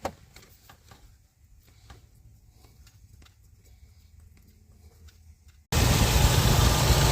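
Faint light clicks of handling over a quiet background, then a car engine suddenly heard idling loud and steady near the end. The exhaust is running without the gurgling grumble: the burnt-out exhaust part has been repaired.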